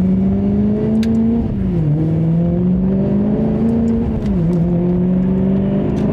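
The Maserati GranTurismo S's 4.7-litre Ferrari-derived V8, heard from inside the cabin through its factory sport exhaust, accelerating hard. The revs climb steadily and drop sharply twice, about 1.5 s in and about 4.3 s in, as it upshifts through the gears.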